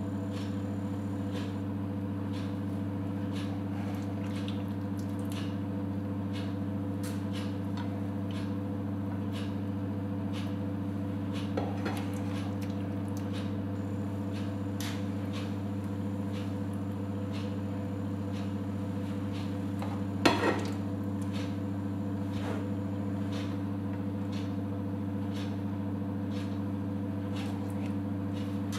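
Light scraping and tapping of a slotted spatula against a frying pan and plate as potato slices are lifted out and laid down, with one louder knock about twenty seconds in. A steady low hum runs underneath.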